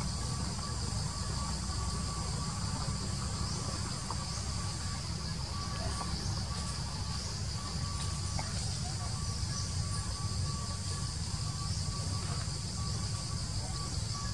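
Steady forest insect chorus: a constant high-pitched buzz with a fainter tone that comes and goes beneath it, over a low steady rumble.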